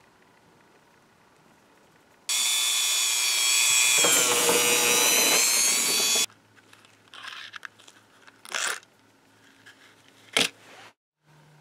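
A small power tool runs for about four seconds at a steady speed, its pitch wavering slightly, and cuts off suddenly. A few light clinks and knocks of small metal parts follow, with one sharp click near the end.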